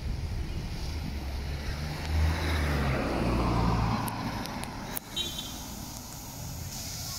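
A motor vehicle driving past close by: its engine and tyre noise swell to a peak a couple of seconds in and fade away by about five seconds.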